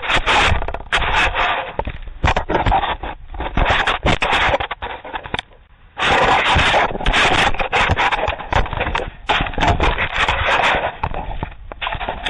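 Loud scraping, rubbing and crackling handling noise right on a Ring security camera's microphone as the camera is grabbed and worked at on its mount, with a short lull a little over five seconds in.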